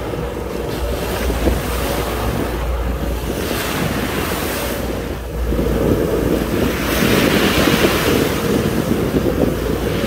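Sea waves washing onto the shore, with wind buffeting the microphone; the surf grows louder in the second half.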